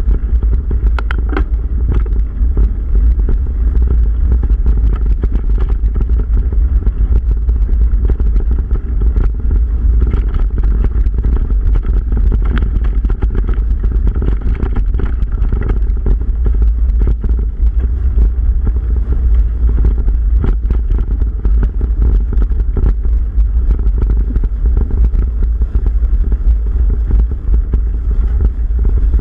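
Mountain bike ridden fast along a leaf-covered dirt trail: tyres rolling over dry leaves and bumps, with many small clicks and rattles from the bike, under a constant low rumble of wind on the camera's microphone.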